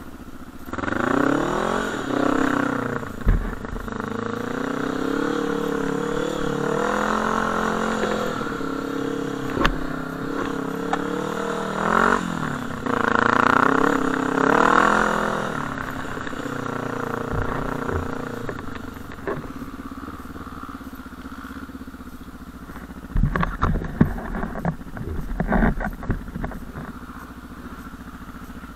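Sport quad's engine being ridden, its pitch sweeping up and down as the throttle is opened and closed through the first half, then running more steadily and quieter. A cluster of knocks and thumps comes about three-quarters through.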